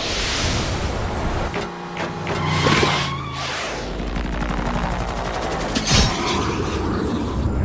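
Layered cartoon sound effects: rapid gunfire-like rattling over a low mechanical rumble, with a sharp impact about six seconds in.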